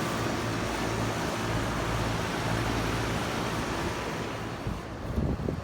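Lennox heat pump outdoor unit running in cooling mode: the condenser fan's steady rush of air over the low hum of the scroll compressor. The airflow noise eases off a little about four and a half seconds in.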